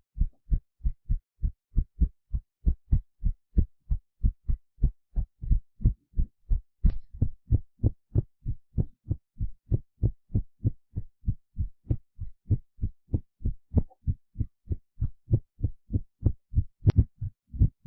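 Heartbeat sound effect: a steady run of low thumps, about three a second. There is a brief click about seven seconds in and again near the end, where one heartbeat recording gives way to the next.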